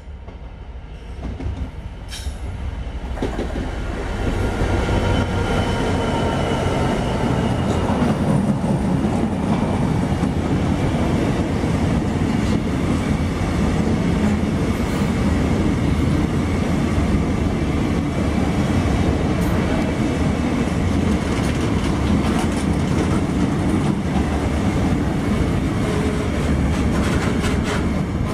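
Diesel-hauled engineering freight train approaching and passing close by: the noise builds over the first four seconds as the locomotive nears, then a long, steady rumble of flat wagons running past, with the wheels clattering over the rail joints.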